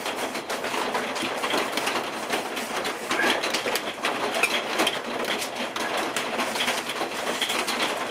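Paper towel rubbing beeswax furniture polish into the inside of a wooden bowl blank: a steady, scratchy scrubbing of many quick strokes.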